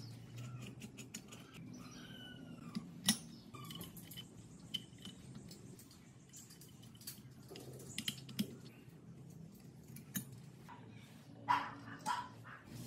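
Metal clutch parts of a Minsk 125cc motorcycle engine clinking as coil springs are pressed into the clutch hub and a friction plate is set into the clutch basket: a few sharp metal clicks, loudest about three seconds in and again near the end, over a steady low hum. Some faint squeaky chirps sound in the first few seconds.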